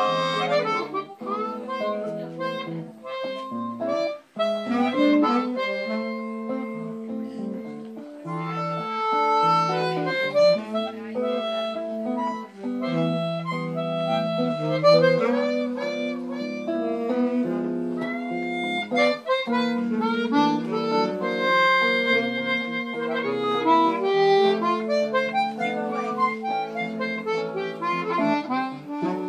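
Bossa nova played on harmonica, which carries the melody, over chords from a Gibson ES-335 electric guitar.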